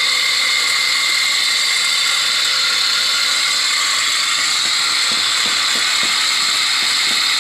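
Electric water pump running on test with a loud, steady mechanical grinding rattle: the noise the owner calls "maingay" (noisy), with the pump about to have its bearing and mechanical seal replaced.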